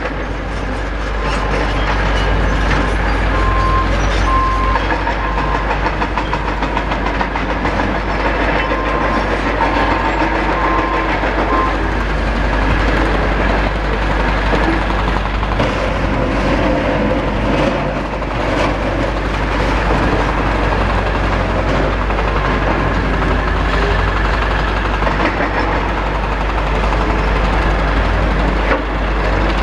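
Demolition excavators working rubble: diesel engines running steadily under continuous clattering and scraping of concrete debris. Two runs of short, evenly spaced machine warning beeps, a few seconds in and again around ten seconds in.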